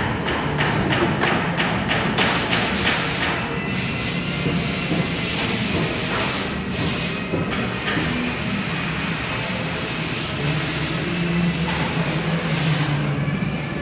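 A woodworking power tool running with a steady low hum under a loud hiss of wood being worked. A quick run of ticks fills the first couple of seconds.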